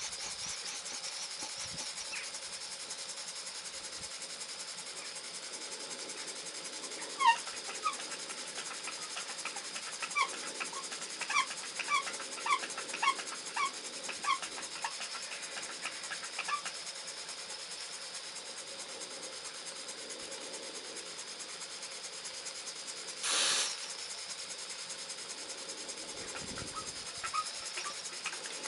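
Small gas-fired model steam boiler and single-cylinder table engine running with a steady hiss. The engine is slowed and the boiler pressure is down from the cold feed water just pumped in. A run of short chirps comes between about 7 and 17 seconds in, and a brief burst of hiss a little after 23 seconds.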